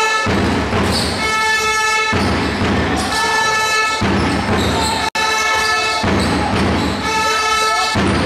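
A horn-like note held for about a second, repeating about every two seconds and alternating with a low pounding beat, as a steady chant-like rhythm in a basketball hall.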